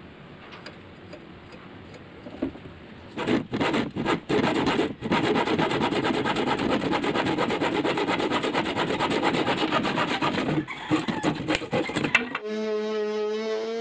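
A pencil marks a faint line on a pine board. From about three seconds in, a hand saw cuts through the board with quick back-and-forth strokes that turn uneven and stop near the end. An electric orbital sander then starts with a steady hum.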